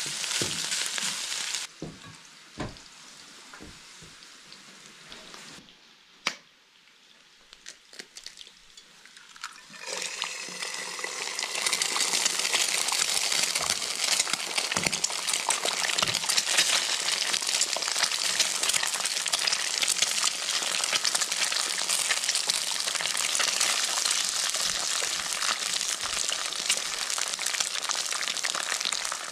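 Eggs frying in hot oil in a wok: a loud, steady sizzle that starts about ten seconds in, after a quieter stretch with a few knocks. At the very start, a stir-fry of beef and garlic scapes sizzles briefly in a steel wok.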